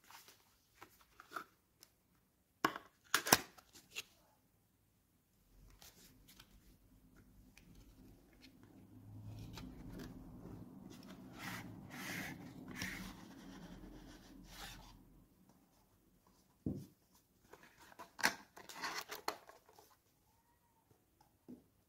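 Paperboard product carton being opened by hand and a bottle slid out of it: scattered rustles, scrapes and sharp clicks, with a longer stretch of paper rubbing and sliding in the middle.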